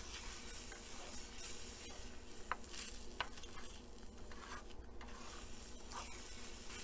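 Wooden spatula stirring and scraping a beaten egg-and-milk omelette mixture in a frying pan while it sizzles faintly. There are two brief louder scrapes, about two and a half and three seconds in.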